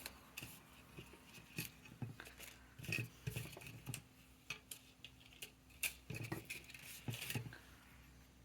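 Small scrapbooking embellishments and papers being picked through and handled: scattered light clicks, taps and rustles, a few louder about three seconds in and again near the end.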